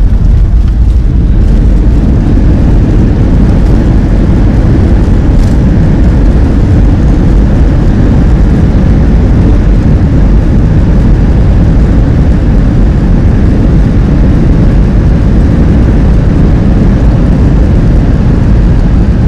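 Steady, loud cabin noise of a jet airliner rolling down the runway just after touchdown, engines and wheels heard from a window seat inside the cabin.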